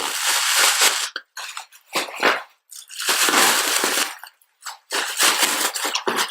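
Shipping packaging being torn open and crinkled by hand, in four rough, ragged bursts with short pauses between them.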